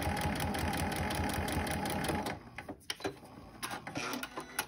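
Computerized sewing machine stitching at a steady, rapid rate through fabric and foundation paper, stopping a little over two seconds in. A few faint clicks follow as the work is handled.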